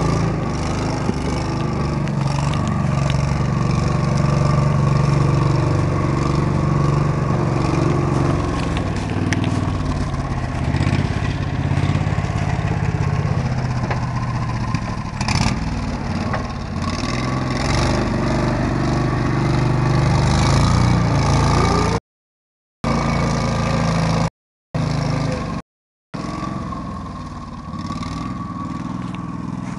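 Coot ATV's engine running as the vehicle crawls over leaf litter and brush, its pitch shifting a little with the load, with clattering and scraping from the body and undergrowth. The sound cuts out briefly three times about two-thirds of the way through.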